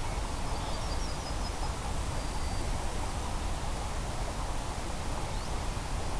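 Steady wind rumble and hiss on the quadcopter's microphone, with a few faint high chirps in the first few seconds. No motors are running: the quad is disarmed.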